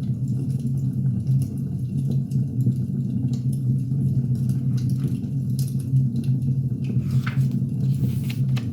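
Wood fire crackling, with scattered sharp pops over a steady low rumble and a brief burst of louder crackles near the end.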